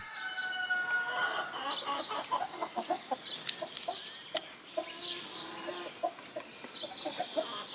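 Flock of young Sundheimer chickens peeping and clucking: many short, high calls overlapping, with a few lower clucks among them.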